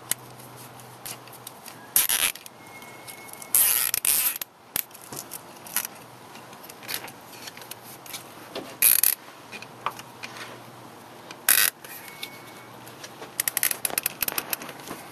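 Plastic cable ties being worked around a fuel hose: short scraping rustles from handling the ties, then a quick run of ratcheting clicks near the end as a tie is pulled tight.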